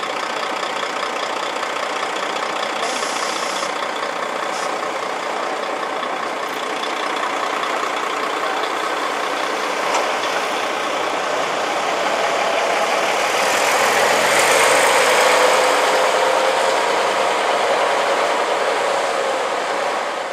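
Vintage single-deck coach's diesel engine running as it drives up the street, growing louder as it comes close past about three-quarters of the way through, its note falling as it goes by, then easing off as it pulls away.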